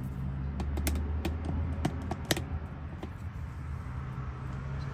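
Small sharp metal clicks of lock parts being handled while a Ford F-150 door lock cylinder is rekeyed. Several clicks come in quick succession during the first half, then fewer, over a steady low hum.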